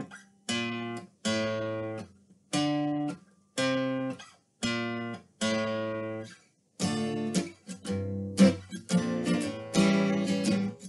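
Strummed guitar chords over a descending bass line. They are played as short, choppy strokes about once a second, then turn into busier, fuller strumming from about two-thirds of the way through.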